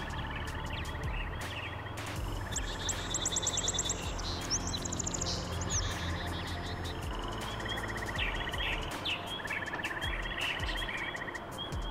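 Several birds singing together: repeated chirps and fast rattling trills. A steady low hum sits underneath.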